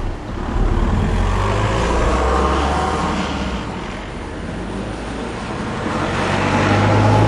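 Motor vehicles passing: engine hum and tyre noise that swell about a second in and again near the end.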